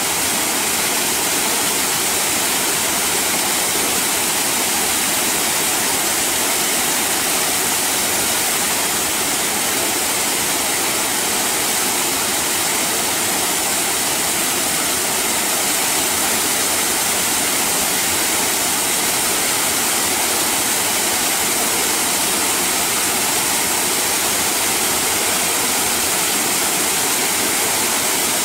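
Small waterfall pouring over a rock ledge, heard up close: a steady, unbroken rush of falling and splashing water.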